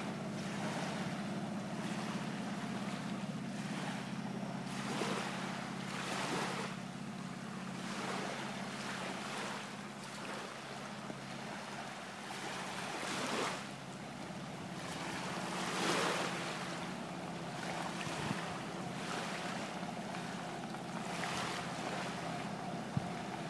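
Small waves washing on the beach every second or two, over the steady low hum of the Waterwheels Cat amphibious boat's engine as it drives on its wheels along the sand.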